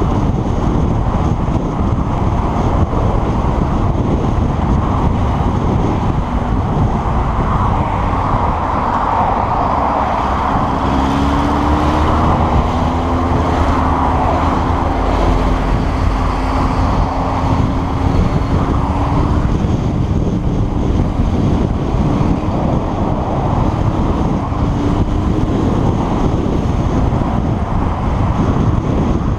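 Steady wind and road rush from a motorcycle at motorway speed, heard on a GoPro action camera's microphone, with the bike's engine running underneath. Around the middle, a humming engine note comes through that shifts slowly in pitch.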